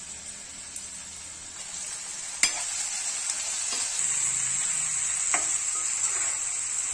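Onions, tomatoes and curry leaves sizzling in hot oil in a non-stick kadai, a steady high hiss, while a steel spatula stirs them. A sharp click about two and a half seconds in, after which the sizzle is louder, with a few light spatula taps against the pan later.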